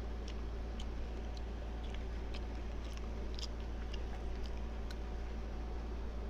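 Faint, scattered clicks and soft wet sounds of food being handled and eaten at close range: roasted chicken being pulled apart and bitten, over a steady low hum.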